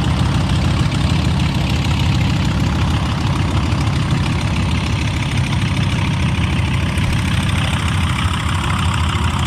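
Sukhoi Su-31M's nine-cylinder Vedeneyev M-14PF radial engine running at low power, a steady low rumble, as the aerobatic plane rolls out on the runway after landing.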